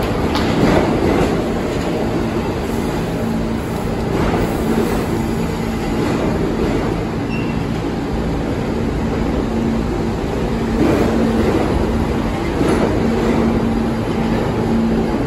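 R46 subway train pulling out of an underground station, its cars running past with a steady rumble of wheels on rail, a low steady hum and sharp clacks now and then as wheels cross rail joints.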